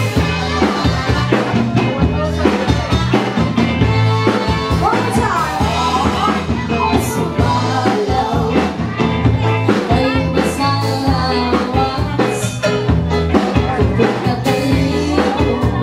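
Live band dance music played loud: drums and bass keeping a steady beat, with a voice singing over it.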